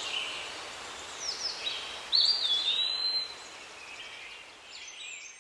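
A bird calling in clear whistled notes that rise and then slide down in pitch, repeated several times with the loudest call about two seconds in, over a faint steady hiss.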